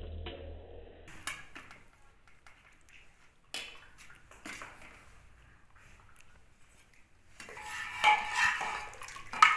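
A steel spoon knocking and scraping against a steel plate and brass pot as rice is served, a few separate light clinks, then a louder stretch of metal cookware clattering and scraping near the end.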